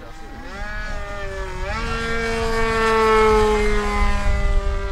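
Radio-controlled model airplane flying overhead, its motor and propeller giving a steady pitched drone. The note climbs in pitch about a second and a half in, grows louder to a peak around three seconds, then drops slightly in pitch as the plane passes.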